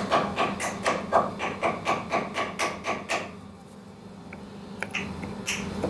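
Small hammer tapping on a block of wood, about four quick knocks a second, which stop about three seconds in. A few lighter knocks follow.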